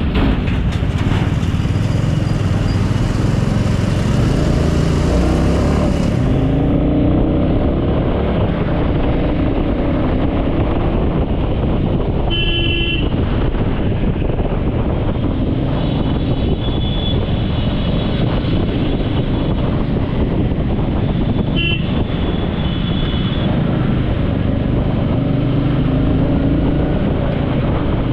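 Road traffic: a steady loud rumble of motor vehicles, with vehicle horns honking briefly, about twelve seconds in and again around twenty-two seconds.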